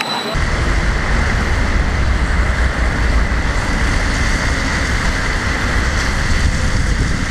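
Wind buffeting the microphone over the running of a Stadler low-floor tram coming into a stop. At the very start a passing tram's high steady wheel squeal breaks off. The sound cuts off suddenly at the end.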